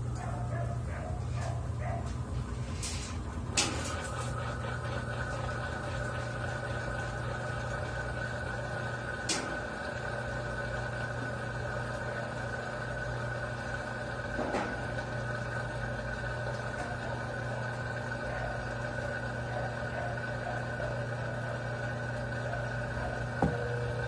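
Consul CWE13AB 13 kg top-load washing machine running with its basket turning fast: a steady motor hum with a high whine from a few seconds in, broken by a few sharp clicks, the loudest about three and a half seconds in.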